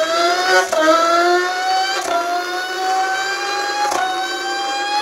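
A man imitating a Formula One car engine with his mouth, accelerating through the gears. It is a high, buzzing whine that climbs steadily in pitch, with short drops like upshifts about three-quarters of a second, two seconds and four seconds in.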